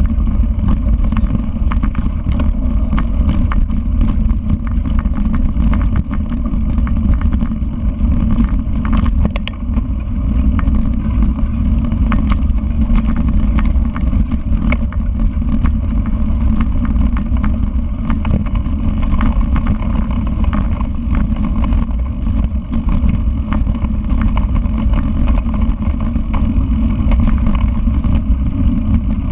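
Mountain bike being ridden over a rough dirt trail: a steady low rumble of wind on the microphone and tyres on dirt, with scattered small clicks and rattles from the bike.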